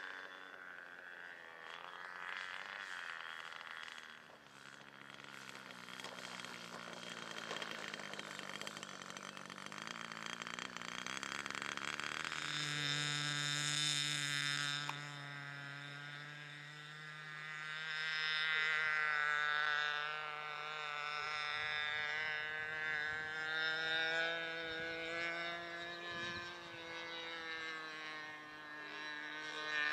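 Super Tigre G-60 single-cylinder two-stroke glow engine of a large radio-controlled model airplane running in flight. Its pitch slides down and up, and its loudness swells and fades as the plane passes and the throttle changes.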